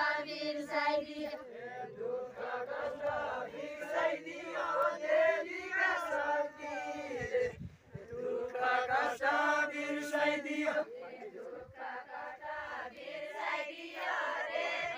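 A group of villagers singing a Nepali Deuda folk song together in a chant-like style, with a short break about halfway through before the next phrase begins.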